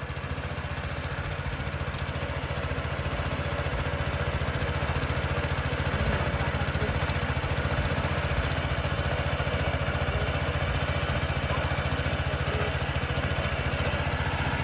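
Small engine driving a water pump, running steadily, draining the pond.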